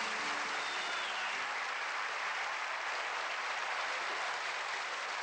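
Studio audience applauding, a dense, steady clapping, with the last held notes of the band's music fading out underneath in the first second or so.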